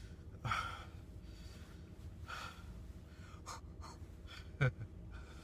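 A man's short breaths and breathy vocal sounds, a few separate bursts with the strongest near the end, over a steady low hum.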